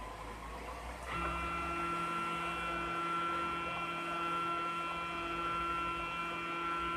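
High-Z CNC router's stepper motors driving an axis at constant speed: a steady, multi-tone electric whine that starts abruptly about a second in.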